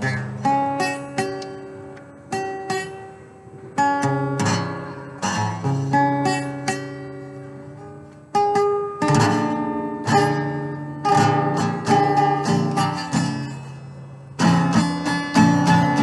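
Wood-bodied resonator guitar played fingerstyle with a brass slide, in phrases of plucked notes that ring and decay between short gaps. A louder, denser passage comes near the end.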